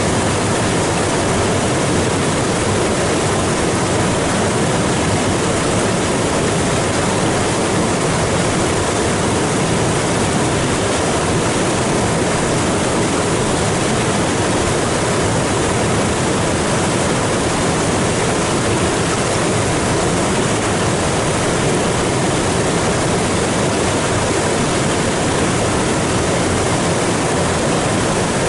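Rain-swollen floodwater rushing across a limestone shelf and pouring over a waterfall ledge: a loud, steady roar of churning water.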